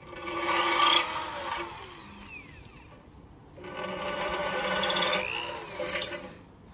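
Cordless drill boring into a clay basin with a large bit to enlarge drainage holes. It makes two runs, each spinning up and winding down: the first in the opening two seconds, the second from about three and a half seconds in.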